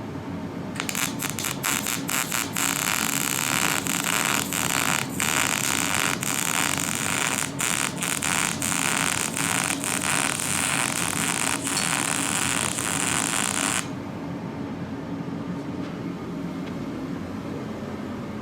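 Electric welding arc crackling and spitting steadily for about thirteen seconds as a bead is laid, then cutting off abruptly when the arc is broken.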